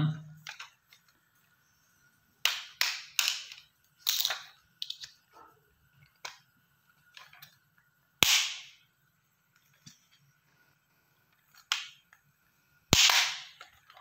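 Hard plastic parts of a toy airplane clicking and cracking as the tail is pressed and forced onto the body: a quick run of sharp snaps a few seconds in, scattered smaller clicks, and two louder cracks, one about eight seconds in and one near the end.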